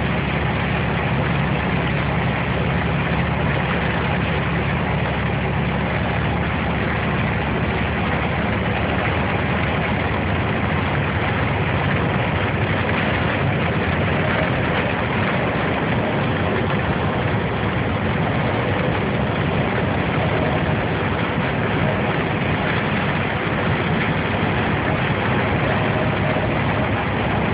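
Steady vehicle noise: an engine running with a low hum under an even hiss, unchanging throughout.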